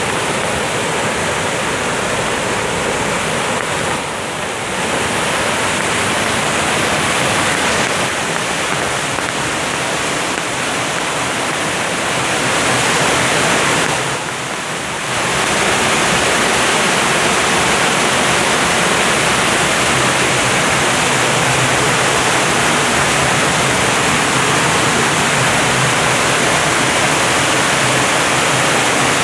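Waterfall rushing: a steady, loud wash of falling water that drops briefly twice, about four and fourteen seconds in.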